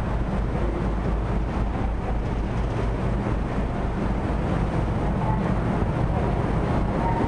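Car ferry's engines and propellers running with a steady low rumble as the ship pulls away from its berth, with the rush of churned water alongside.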